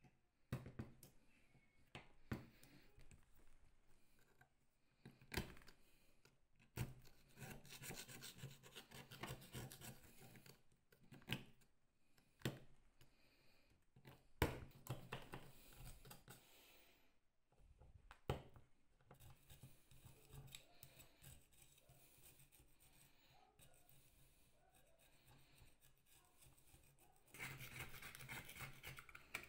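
Faint scratching and picking as a fine metal pick works crusted dirt off the metal body of an old glazing point driver, with scattered sharp clicks. Near the end a knife blade scrapes along the casting in a louder, denser spell.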